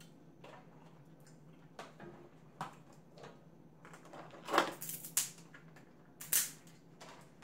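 Crab-leg shells being cracked and snapped apart by hand: a handful of sharp, separate cracks, the loudest about four and a half and six seconds in.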